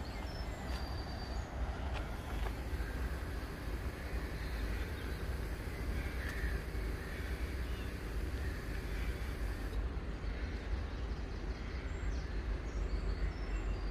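Steady low rumble of wind buffeting the microphone, with crows cawing now and then.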